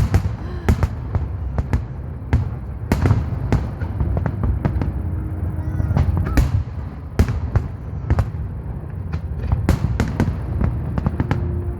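Fireworks display: a rapid, irregular run of sharp bangs and crackles over a constant low rumble.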